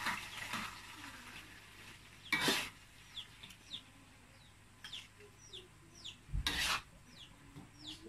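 A metal spatula scraping twice across a wok as cooked eggplant sambal is scooped out onto a plate. A bird gives short, high, falling peeps over and over behind it.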